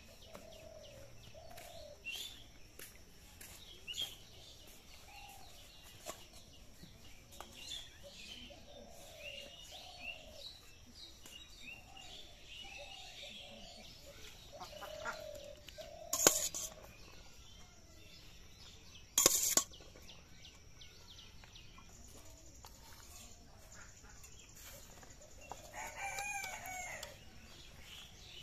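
Chickens clucking on and off, with a rooster crowing once near the end. Two sharp knocks a few seconds apart in the middle are the loudest sounds.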